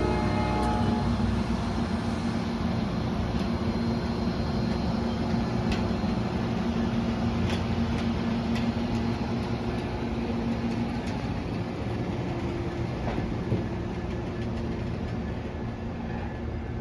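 Amtrak passenger train's diesel locomotive running with a steady low hum, a few faint clicks over it, easing off slightly near the end.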